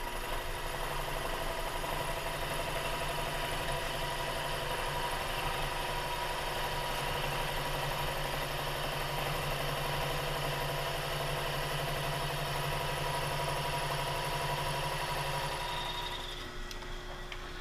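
Milling machine spindle running as a 15/16-inch end mill cuts a shallow counterbore into a cast aluminium Harley-Davidson Panhead engine case, a steady machine hum with cutting noise. The sound drops off about sixteen seconds in.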